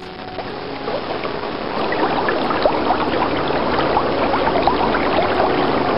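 Cartoon sound effect of a crocodile swimming across a river: a steady rush of flowing, bubbling water with many small gurgles, fading in over the first couple of seconds.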